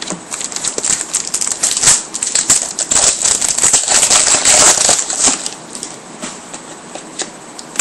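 Trading cards being handled and flipped through: quick rustling and small clicks of stiff card stock sliding and tapping together. Busier for the first few seconds, then lighter near the end.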